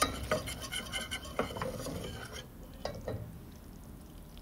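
A utensil stirring a butter-and-flour roux in a pot, knocking and scraping against the pot in irregular clicks that die away about three seconds in.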